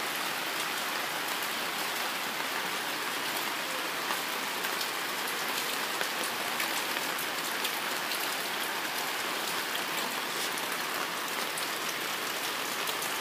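Steady rain falling on ground and floodwater: an even hiss with faint scattered drop ticks.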